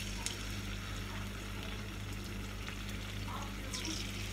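Battered chicken pieces frying in hot oil in a pan: a steady sizzle with small crackles, over a low steady hum.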